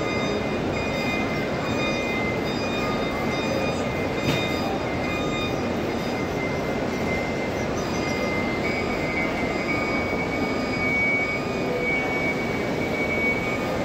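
Dense, steady hubbub of a huge crowd of pilgrims circling the Kaaba: countless voices and shuffling footsteps blending into one continuous wash of noise, with faint thin high tones held above it.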